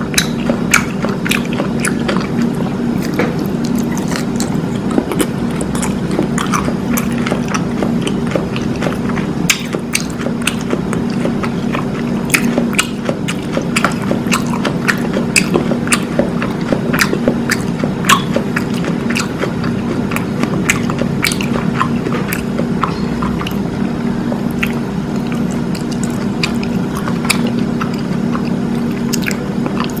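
Close-miked biting and chewing of a crisp taco shell filled with beef, coleslaw and cheese: frequent sharp crunches and cracks of the shell with wet chewing in between. A steady low hum runs underneath.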